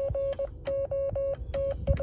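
Morse code from a Yaesu FT-817 transceiver: a single steady mid-pitched CW tone keyed on and off in dots and dashes, with a sharp click at each keying edge. A low thump near the end.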